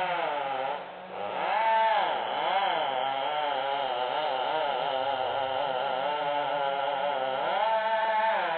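Small gasoline engine revving up and down repeatedly, its pitch rising and falling several times; it cuts off abruptly near the end.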